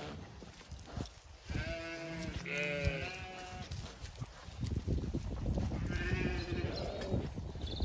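Zwartbles ewes bleating close by: a few quavering bleats about two seconds in and another about six seconds in, over a low rumble.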